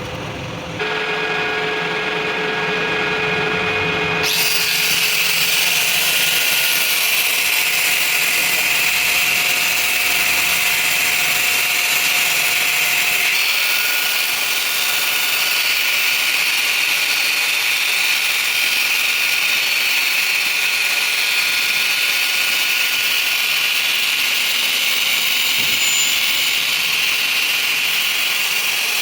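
Electric power tool starts up about a second in with a steady motor whine. From about four seconds in it gives way to a loud, even, harsh hiss as the tool works metal.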